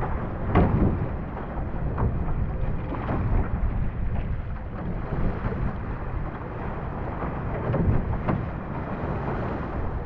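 Wind rumbling on the microphone over water rushing and slapping along a one-person outrigger canoe's hull, with repeated brief splashes from the chop and paddle strokes.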